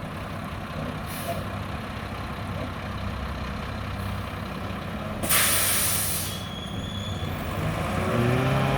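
Mack McNeilus front-loader garbage truck's diesel engine running, with a loud burst of air-brake hiss about five seconds in that fades over about a second. Near the end the engine gets louder with a steadier tone.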